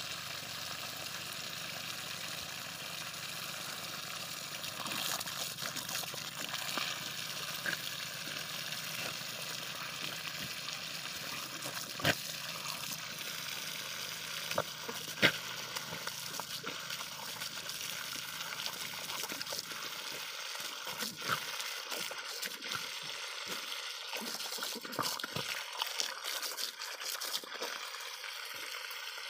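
Water spraying from a small leak in a black pipe, a steady hissing spray, with two sharp clicks partway through, the second the loudest.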